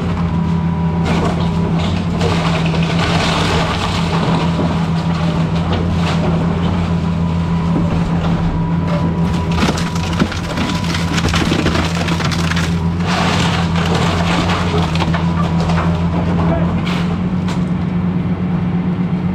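Excavator's diesel engine running steadily while wood and house debris crunch, crack and splinter under the machine. The crunching swells a few seconds in and again about thirteen seconds in.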